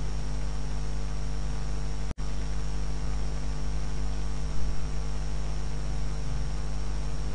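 Steady electrical mains hum with a hiss behind it, cutting out completely for an instant about two seconds in, an audio glitch in the recording.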